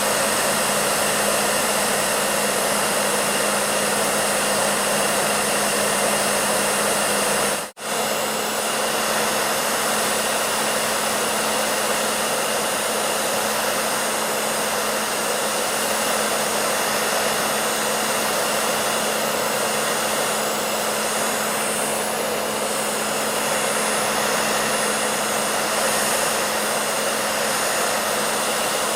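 Hair dryer running steadily: an even rushing blow with a constant low hum. It cuts out for an instant about eight seconds in, then carries on unchanged.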